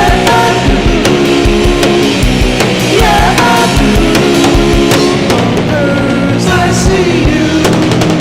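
Loud rock music with a steady drum beat and guitar.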